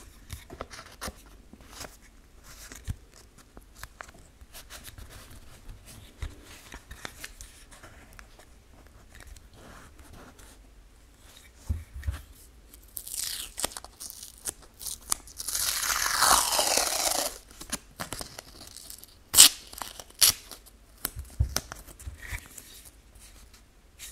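Brown packing tape being handled on a small 3D-printed plastic badge: soft rustling and tapping, then a long rip of tape pulled off for about two seconds midway, followed by a couple of sharp tearing snaps.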